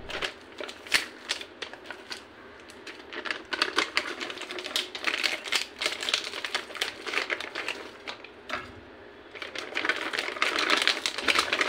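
Zip-lock plastic bag crinkling and crackling in quick, irregular clicks as hands press and flex the frozen green chilli paste inside it, with a short lull about nine seconds in.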